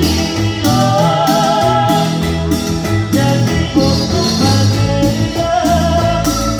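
Loud live band music with a strong bass line, a steady percussion beat and a wavering lead melody, with singing.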